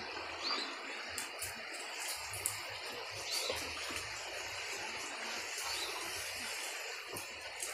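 Water rushing steadily through a fish pond's concrete sluice gate as the pond is drained for harvest.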